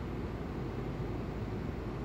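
Steady low rumbling background hum inside a ship's interior, with no distinct events.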